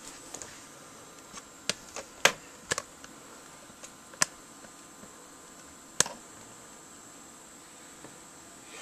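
Sharp, short clicks and taps of a screwdriver and a small screw against the metal of a computer case and motherboard while a mounting screw is driven in. A quick cluster of clicks comes about two seconds in, then single louder clicks around four and six seconds in.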